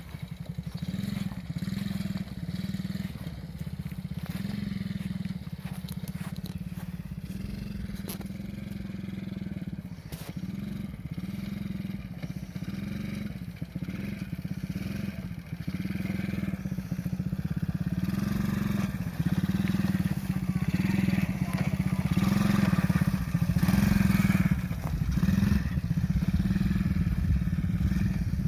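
A small 50cc children's ATV engine runs with a steady pulsing drone that swells and fades about once a second. From about two-thirds of the way in it gets louder, with more crunching and rattling noise over it.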